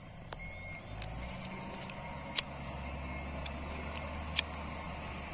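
A steady, low engine-like hum sets in about a second in, with a few sharp clicks over it.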